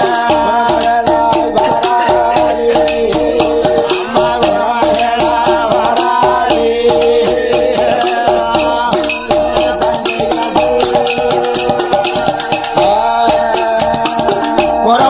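Villu pattu ensemble playing an instrumental passage: a wavering, bending melody over a fast, steady rattling percussion beat.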